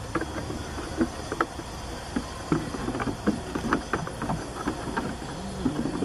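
Low wind rumble on a muffled, makeshift-windproofed microphone, with scattered light taps and knocks throughout.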